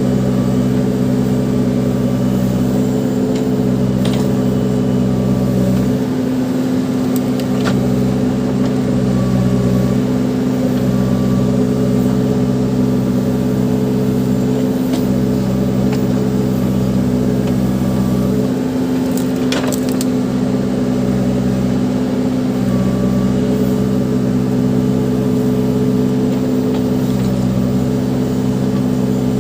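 Case 580 Super backhoe loader's diesel engine running steadily under working load, its pitch sagging briefly twice as the hydraulics take load. A few sharp cracks and knocks sound over it, the clearest about twenty seconds in, like debris breaking in the bucket.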